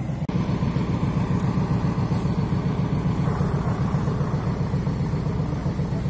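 Heavy diesel truck engine running steadily with a low drone.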